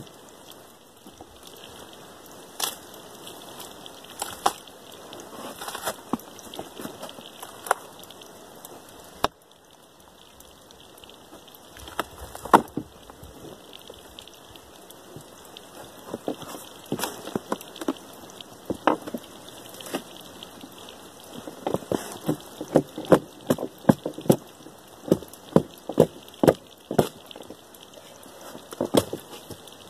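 Bark being pried off a felled log with an axe: scattered sharp cracks and taps as the bark splits away from the wood, coming thicker and faster in the second half.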